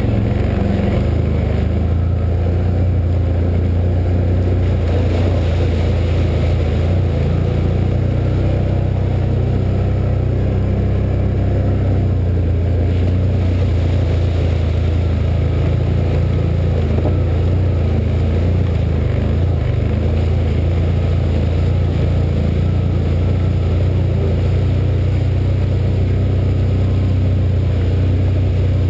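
2013 Can-Am Outlander 1000 Max XT ATV's Rotax V-twin engine running steadily under way, with water splashing around the tyres as it drives through standing water about halfway through.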